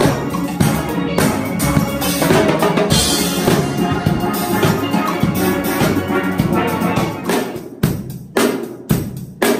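A steel band playing: many steel pans struck with rubber-tipped sticks over a drum kit with cymbals. After about seven seconds the dense playing thins out into separate heavy drum strokes.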